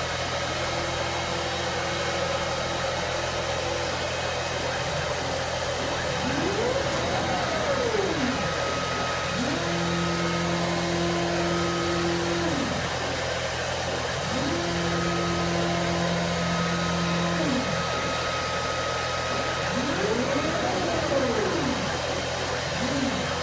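CNC flatbed cutting table's gantry drive motors whining as the cutting head moves over the sheet. Each move rises and falls in pitch, and two longer moves ramp up, hold a steady pitch for about three seconds and ramp down, all over a steady hum and rush of machine noise.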